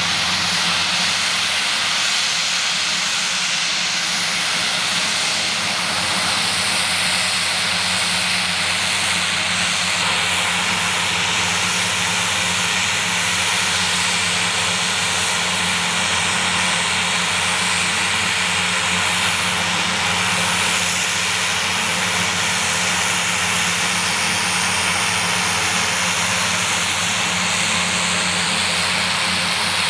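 Short SC-7 Skyvan's twin Garrett TPE331 turboprop engines idling on the ground, a steady hiss over a low, even propeller hum.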